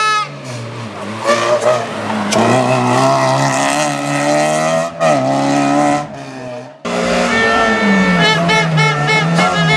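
Toyota Yaris rally car engines at full throttle, pitch climbing and dropping with gear changes and lifts off. About seven seconds in the sound cuts abruptly to another car's engine.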